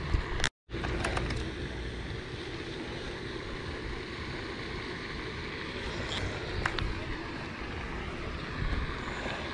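Steady wind and outdoor noise on a body-worn action camera's microphone, with a few light clicks. The sound cuts out completely for a moment just after the start.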